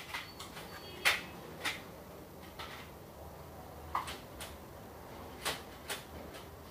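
Scattered light clicks and knocks, about eight of them at uneven intervals, the sharpest about a second in, over a faint steady room hum.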